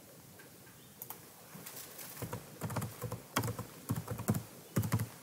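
Typing on a computer keyboard: a run of irregular keystrokes that starts about a second in.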